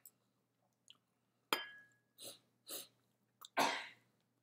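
Metal chopsticks clink once against a ceramic bowl or plate with a short ring about a second and a half in. Then comes close-up chewing and, near the end, a loud crunching bite into panko-breaded chicken.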